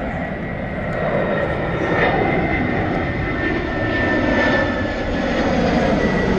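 Steady rushing noise that grows a little louder about two seconds in, with a faint thin whistle above it.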